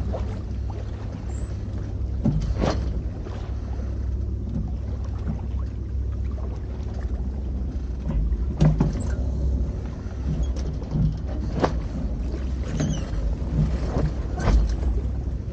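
Sounds aboard a sailboat under way: a steady low rumble with a sharp knock every few seconds.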